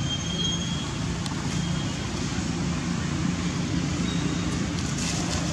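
Steady low background rumble, with a few faint, short high-pitched chirps about a second in, at about two seconds and again near four seconds.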